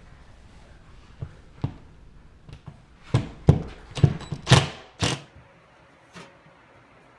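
Knocks and thumps of drywall screw driving with a cordless DeWalt drill pressed against a ceiling panel. Two single knocks come first, then about six loud, sharp ones crowd into two seconds about three seconds in, before it goes quiet.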